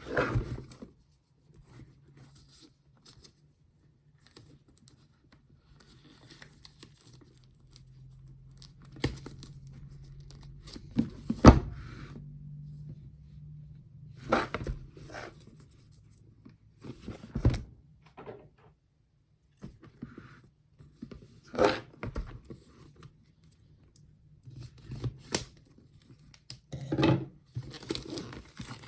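Packaging being handled and opened: a series of scattered tearing and crinkling rustles with occasional knocks, the sharpest knock about eleven seconds in.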